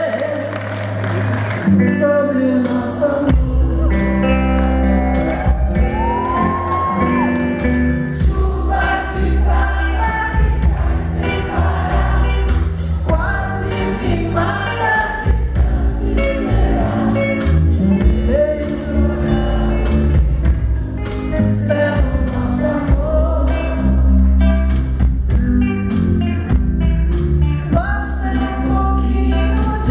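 A woman singing a song live into a microphone, backed by a band with electric bass and drums. The low bass and drums come in about three seconds in, under the melody.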